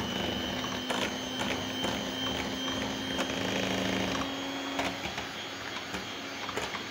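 Westpoint electric hand mixer running steadily, its beaters whipping chocolate custard into whipped cream in a glass bowl; a steady motor hum with a thin high whine and a few sharp clicks.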